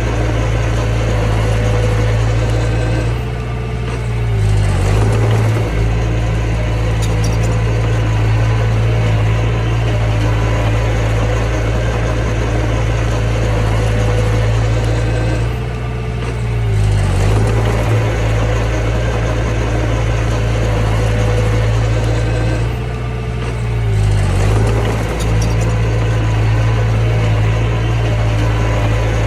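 Mini bulldozer's diesel engine running steadily. Three times, its note sags in pitch and level and then picks back up.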